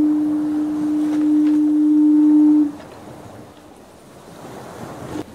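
A ship's foghorn sounding one steady low blast of about three seconds over the even hiss of ocean waves and wind; the horn starts again, fainter, near the end.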